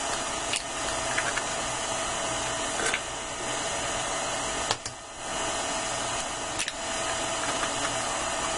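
KitchenAid tilt-head stand mixer running steadily on a low speed, its flat beater turning through dough in a stainless steel bowl. A few sharp taps are heard as eggs are cracked in.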